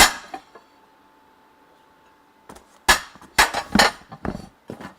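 Plates clinking and knocking against each other as they are handled: one loud clack at the start, then several more sharp knocks about three seconds in.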